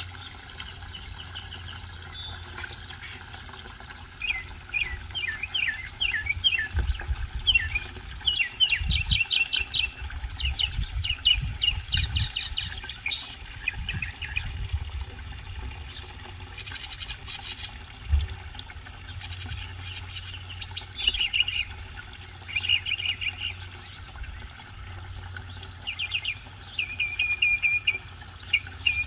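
Northern mockingbird singing: a long string of varied phrases, each note pattern repeated several times before switching. Under it runs the steady splash of a pond waterfall spillway fed by the pond pump, with occasional low rumbles.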